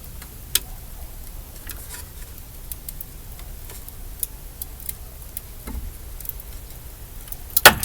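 Scattered light clicks and taps at uneven intervals over a low background, with one loud sharp knock near the end.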